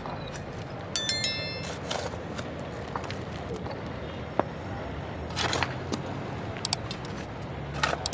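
Construction-site noise: a few sharp metallic clinks, the loudest about a second in ringing briefly, with scattered knocks and scrapes over a steady low rumble.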